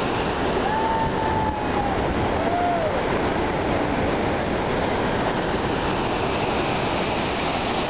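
Steady rushing noise of churning river water and a boat's engine. Two short rising-and-falling whistle-like tones come about a second in and again about two and a half seconds in.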